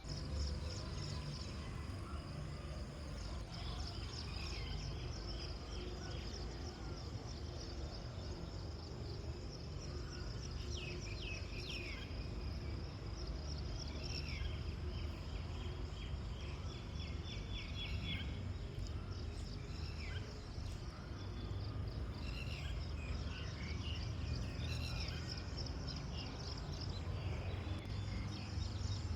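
Insects keep up a steady high, rapidly pulsing trill, while birds call in short chirping runs now and then, over a steady low rumble.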